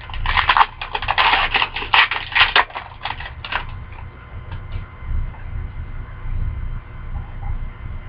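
Crinkly foil wrapper of a hockey card pack being crumpled and torn open, a dense run of crackling for about the first three and a half seconds, then only a couple of faint clicks.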